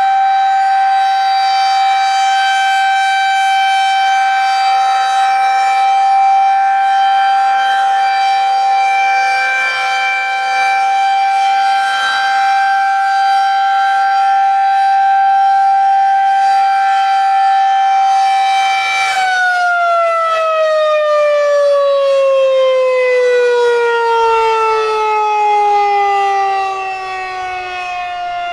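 Federal Signal 2001-130 electromechanical outdoor warning siren sounding a loud single steady alert tone, the signal of a one-minute alert test. About two-thirds of the way through the tone stops holding and slides steadily down in pitch as the siren winds down at the end of the alert.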